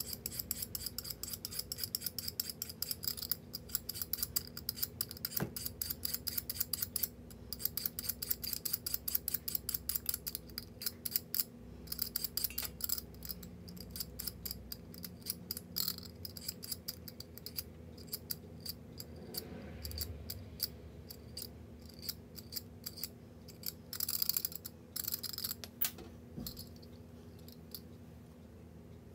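Kitchen knife cutting carrot on a cutting board, sped up to double speed: rapid, even strokes in long runs with a few short pauses, growing sparser toward the end.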